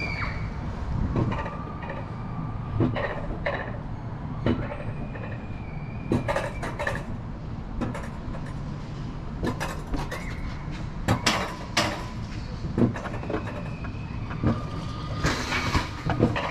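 Mountain coaster sled being pulled up the lift section of its rail track: a steady low rumble with irregular clacks and knocks as it runs along the rails.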